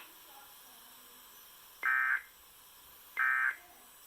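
Two short bursts of Emergency Alert System SAME data tones, each under half a second and a little over a second apart: the end-of-message code that closes a National Weather Service tornado warning broadcast.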